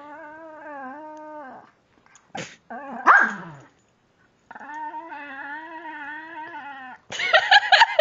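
Pekingese dog making drawn-out whiny moans held at one pitch, two of them about two seconds long, with a short loud falling cry between them. Near the end comes a loud burst of rapid, choppy barks.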